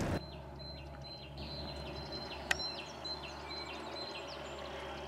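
Birds singing in the background: many short, quick chirps and trills, with a thin steady high note underneath and a single sharp click about two and a half seconds in.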